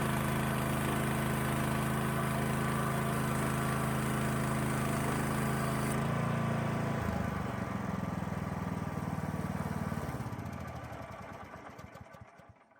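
Band sawmill's engine running steadily, then throttled down about six seconds in and shut off, the sound winding down and dying away near the end as the machine coasts to a stop after the cut.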